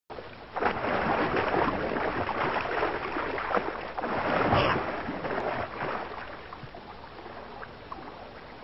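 Heavy splashing and churning river water as a crocodile lunges at an antelope and it thrashes. The splashing is loudest about four and a half seconds in and dies down over the last few seconds.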